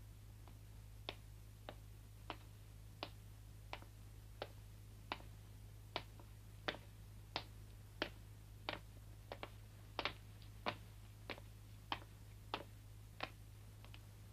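Footsteps on stone steps: slow, even single steps, about three every two seconds, fading out near the end.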